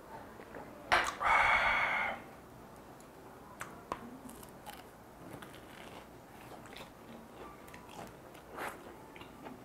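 A sharp click about a second in, then about a second of loud breathy hiss. After that come crisp bites and chewing on a deep-fried piece of minced meat filled with cheese, its fried crust crunching in small scattered clicks.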